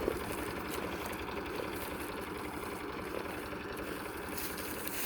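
Zetor 3320 tractor's diesel engine running steadily.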